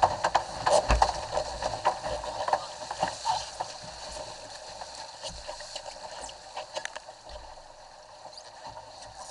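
Water rushing and splashing along the hull of a Cherub sailing skiff moving fast, with many sharp slaps and knocks of waves and spray. It is busiest and loudest for the first few seconds, then eases to a quieter rush.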